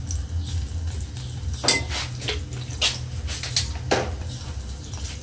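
Cooking pan and metal utensils clanking: about five sharp knocks, the loudest a little under two seconds in, over a steady low hum.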